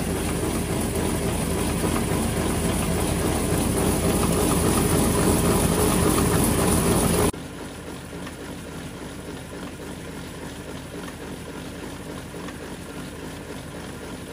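An engine or motor running steadily at close range. About seven seconds in it cuts off abruptly to a quieter steady running noise.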